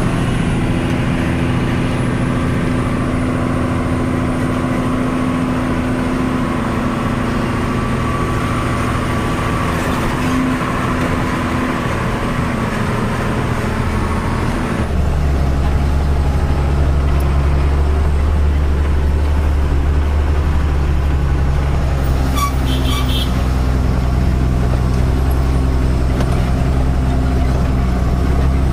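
Tata 3118 truck's diesel engine running under way, heard from inside the cab, with road noise. About halfway through the sound becomes deeper and a little louder.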